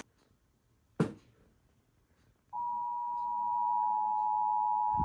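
Near silence with a single sharp click about a second in. Then, halfway through, the Emergency Alert System attention signal starts suddenly: a loud, steady two-tone alarm that does not waver.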